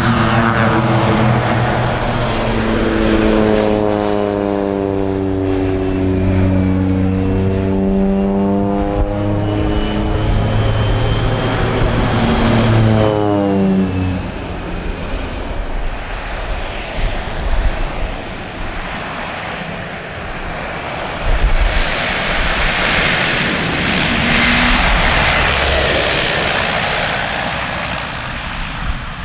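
Schweizer G-164B Ag-Cat crop-duster biplane flying low passes: its engine and propeller drone loudly, the pitch dropping as it goes by, twice in the first half. Later a rougher, noisier engine sound swells as it comes in again.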